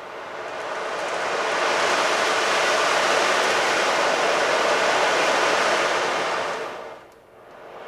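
A surf-like sound effect being recorded: a rushing wash of noise swells in over about two seconds, holds, and dies away about seven seconds in, like a wave washing in and drawing back, with the next one starting to swell just after.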